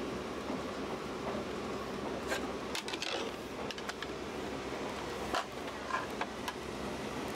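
A fold-out tray table being pulled from a train seat's armrest and opened, with a string of plastic clicks, clacks and rubbing from about two seconds in until near the end. A steady rumble from the moving train's cabin runs underneath.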